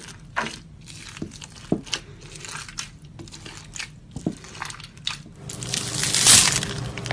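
Slime being squeezed and worked by hand, giving small scattered pops and crackles, which grow into louder, denser crackling near the end.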